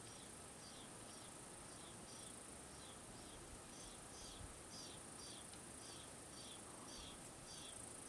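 Lewis's woodpecker nestlings begging from the nest hole: a faint, regular series of short high calls, about two a second, over a steady high hiss.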